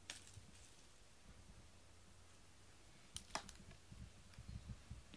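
Near silence: room tone with a low hum. There is a faint click at the start, two sharper clicks a little after three seconds in, and a few soft low knocks near the end.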